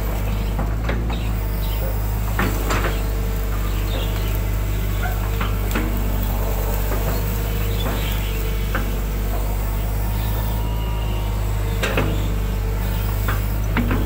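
Excavator's diesel engine running steadily as the machine digs, heard from the cab, with scattered sharp knocks and clanks as the bucket and arm work mud and weeds out of a ditch.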